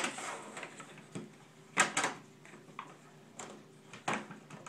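Knocks and clatter of hard plastic parts being handled as a Sensus water meter radio is tightened onto its ring mount bracket: a sharp knock at the start, two close together about two seconds in, and more near the end.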